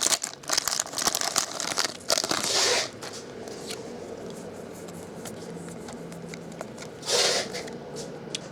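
A baseball card pack's foil wrapper being torn open and crinkled: about three seconds of dense crackly rustling, then quieter handling with one short crinkle a little after seven seconds.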